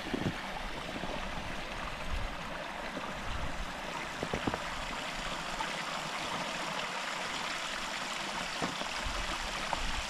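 Small moorland stream running between snow-covered rocks: a steady rushing hiss of water, with a few faint clicks.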